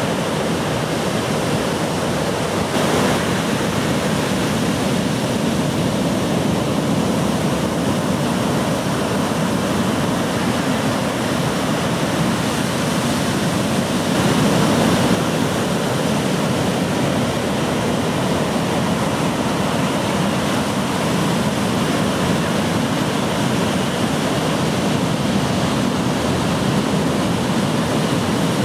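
Ocean surf: waves breaking and washing in a steady rush, swelling louder about three seconds in and again about fourteen seconds in.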